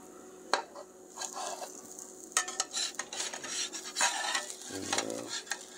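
Stainless steel spatula tapping and scraping against a GreenLife nonstick frying pan as it works around and under the edge of a cooking pancake, with light sizzling. A sharp tap comes about half a second in, followed by irregular scraping strokes.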